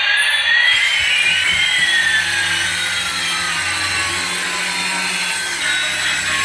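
Battery-powered toy running: a steady whirring motor hiss with a low hum. Over it, electronic tones slide, one rising and one falling, crossing about a second in.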